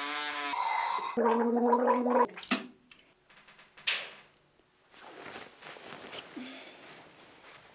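An electric toothbrush buzzes for about half a second, then water is gargled in the throat for about a second, the loudest sound here. A sharp splash-like click follows, then only faint noise remains.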